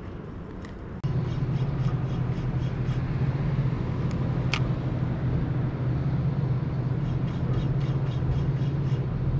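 A steady low engine hum, starting abruptly about a second in, with a fast regular ticking over it and one sharp click near the middle.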